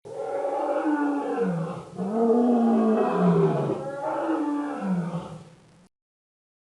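Dinosaur roar sound effect: three long roars of about two seconds each, each sagging in pitch, the last fading and cutting off about six seconds in.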